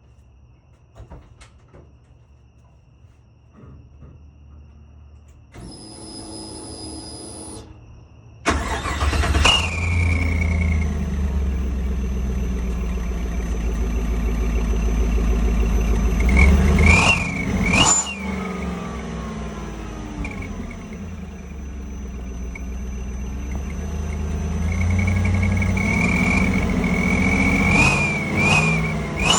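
1974 Ford F100 cranked on the starter for about two seconds, then the engine catches and runs loud at the tailpipe. A bolt-in exhaust whistle insert adds a high whistle over the exhaust that rises and falls as the engine is revved, most clearly in the middle and near the end.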